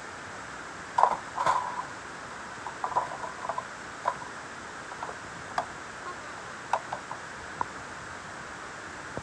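Handling noise: scattered short clicks and taps over a steady hiss, the loudest about a second in, a cluster around three seconds and a few more spread through the rest.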